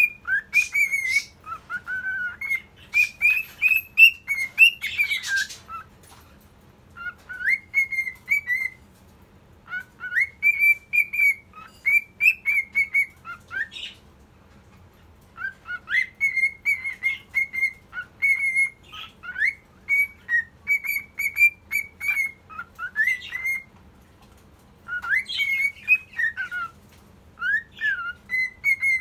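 Cockatiel whistling its song: phrases of short whistled notes, many sliding up into the note, separated by pauses of a second or two.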